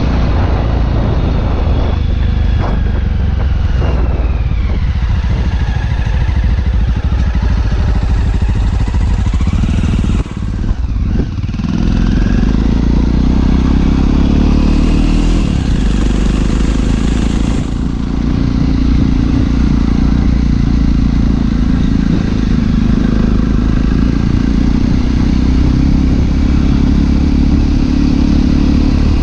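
Motorcycle engine running steadily while being ridden, with a brief drop in loudness about ten seconds in before it settles back to a steady, slightly louder run.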